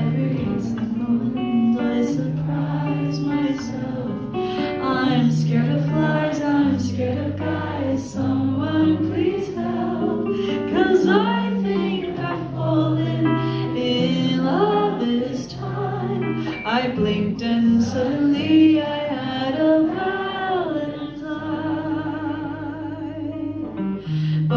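A woman singing a jazzy song live with guitar accompaniment, through a concert PA as heard from among the audience.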